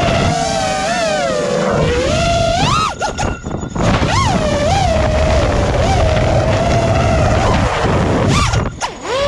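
FPV quadcopter's brushless motors and propellers whining from the onboard camera, the pitch swooping up and down as the throttle changes, over a rush of wind and prop wash. The whine briefly drops away about three seconds in and again near the end, as the throttle is cut.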